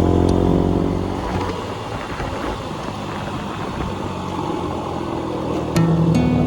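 Small motor scooter engine running while riding, with rushing road and wind noise. Background music plays over it at the start and again near the end.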